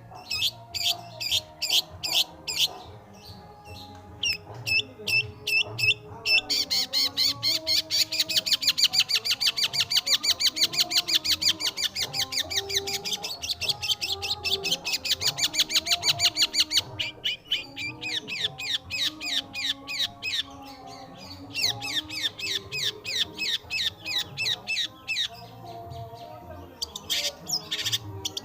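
Long-tailed shrike singing: rapid series of short, repeated high notes, turning about a quarter of the way in into one long fast trill that runs until a little past the middle, then back to quick note series.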